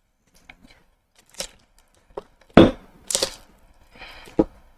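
A handful of sharp plastic clicks and knocks with a short scraping rustle, from an ice cream tub being handled and its lid opened.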